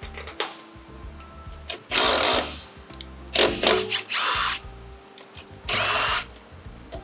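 Power drill turning a 12 mm socket in four short bursts, some with a rising whine, loosening the bolts that hold the battery.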